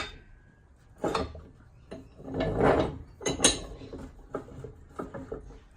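Dawn 6LQ cast-iron quick-release bench vise's sliding jaw being pushed in and pulled out by hand: a metallic scrape with several clicks and knocks, the phosphor bronze half nut biting on the main screw so the slide catches.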